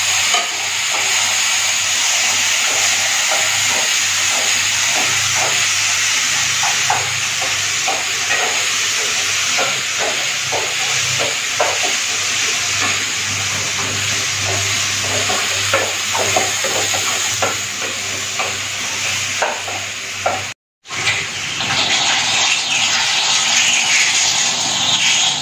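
Browned onions and chopped tomato sizzling in butter in a pan, stirred with a spatula that scrapes and clicks against the pan. About 21 seconds in, after a cut, a kitchen tap runs into a steel sink.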